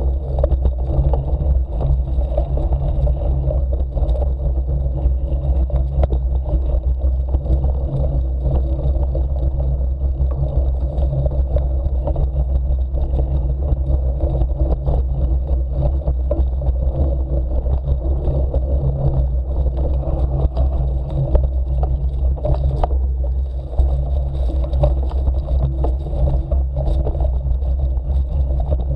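Steady low rumble of wind and vibration on a handlebar-mounted action camera while riding a bike over a dirt forest trail, with tyres rolling on the ground and scattered knocks and rattles over bumps.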